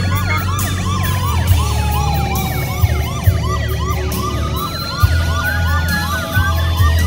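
Police-style siren sound effect in a fast yelp of about three rising-falling chirps a second, with a slower wailing tone gliding beneath it, over the low rumble of a moving car's cabin.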